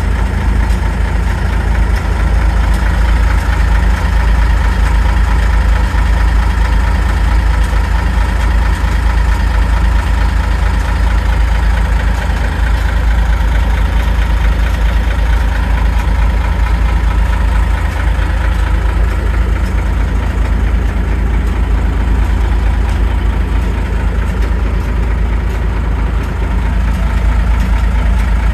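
The Cummins six-cylinder diesel engine of an M925A1 5-ton army truck idling steadily, heard from inside the cab.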